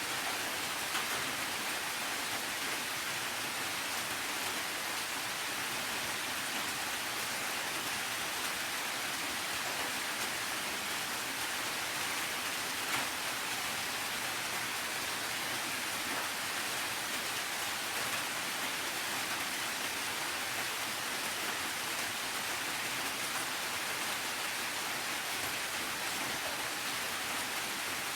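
Steady rain falling, an even hiss with scattered faint drop ticks and one slightly louder tick about halfway through.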